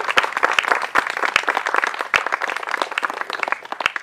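Audience applauding with many hands clapping densely, thinning out toward the end.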